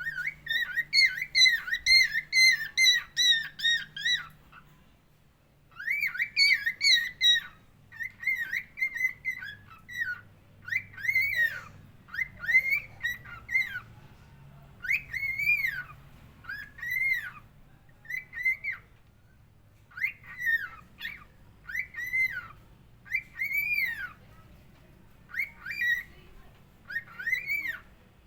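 Budgerigar (falk parakeet) whistling. A rapid run of rising-and-falling whistled notes lasts about four seconds, then after a brief pause come short groups of the same arched notes in a steady rhythm.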